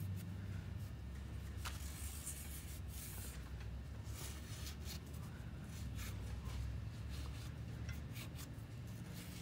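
Soft, irregular rubbing of a shop rag damp with brake cleaner, wiping around a truck power divider's input shaft and seal bore, over a steady low hum that eases off about eight seconds in.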